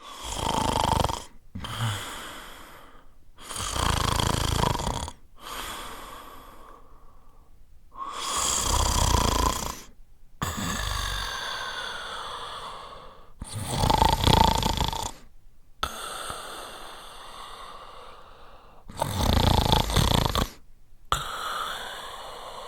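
A sleeping man snoring: five loud snoring inhales about five seconds apart, each followed by a quieter, breathy exhale.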